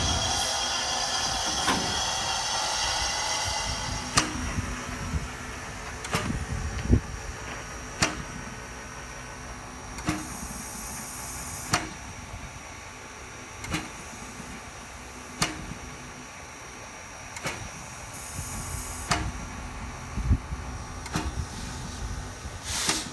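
Steam tank locomotive SJ 1916 standing with steam up: a regular knock about every two seconds, with two short hisses of steam. A louder mixed noise at the start dies away after about four seconds.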